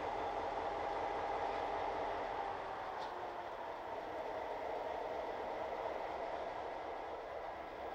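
Freight train in motion, with the locomotive and gondola cars running steadily and a mid-pitched tone running through the noise.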